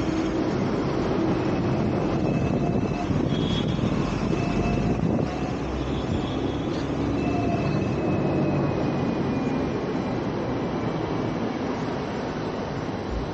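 Hong Kong double-decker tram running along its rails, heard from on board: a steady rumble of wheels and running gear mixed with street traffic, with faint high whines coming and going twice.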